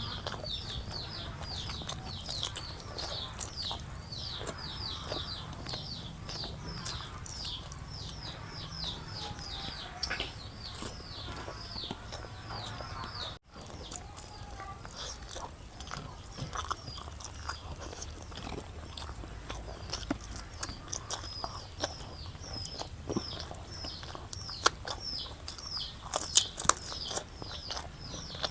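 Chewing and wet mouth clicks of someone eating a rice-and-curry meal, over a bird chirping rapidly in the background: short falling chirps, about four a second, that thin out after a brief dropout about halfway.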